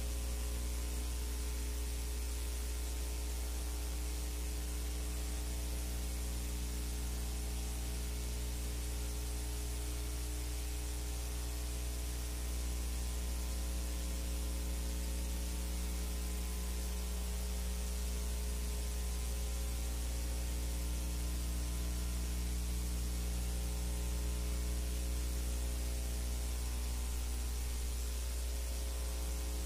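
Steady electrical mains hum with many overtones under a constant hiss. This is the background noise of a silent film's transfer, which has no sound of its own.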